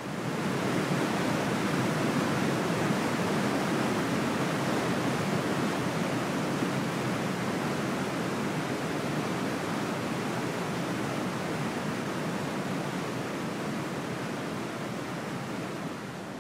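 Rushing white water of river rapids, a steady even rush that starts suddenly and slowly fades near the end.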